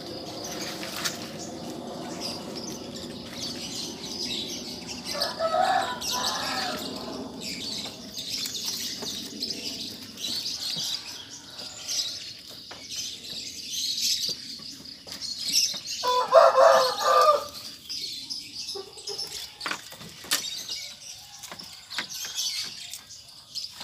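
Javanese goats bleating twice, a call about five seconds in and a louder one around sixteen seconds in, over steady bird chirping and scattered clicks and knocks.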